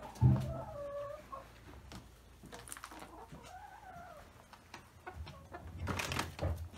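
Chickens calling: a thump, then a wavering call, and about three seconds in one drawn-out call that rises and falls. A burst of rustling noise comes near the end.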